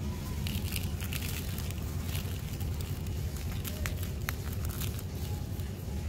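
A dry mud ball crushed and crumbled by hand into a tub of loose dust: scattered gritty crackles and crumbling, thickest in the first four seconds, over a steady low hum.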